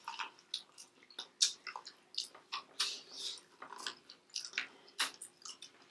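Close-miked chewing of food: irregular wet, smacking mouth clicks, several a second.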